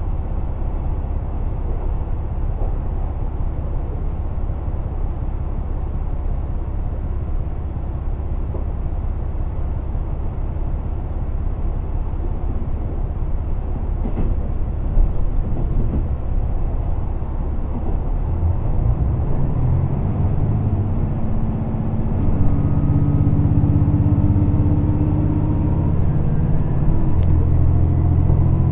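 Interior of a moving train: a steady low rumble of the carriage running on the rails. From about two-thirds of the way in, a humming motor tone joins it, shifting in steps, with a faint high whine over the top.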